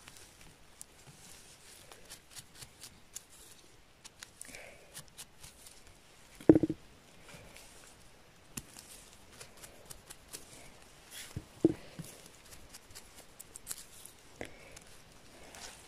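Small knife scraping and trimming a freshly picked chanterelle's stem, with rubber-gloved hands rustling in moss and grass, in many small scratches and clicks. Two short soft knocks stand out, about six and a half and eleven and a half seconds in.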